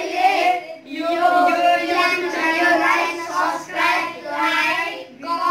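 A group of young boys singing together.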